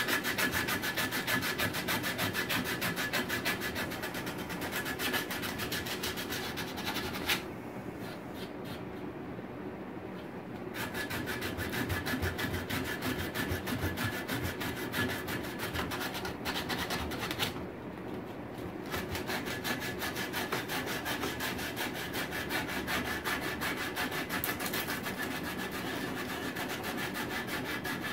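Sandpaper disc rubbed by hand over the wood of an easel joint in quick back-and-forth strokes, with two short pauses.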